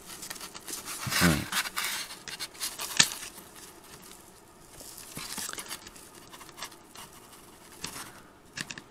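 Hand-working sounds: steel pliers gripping and bending staple legs through thick felt, with rustling and scraping of the fabric and scattered small metal clicks, one sharp click about three seconds in.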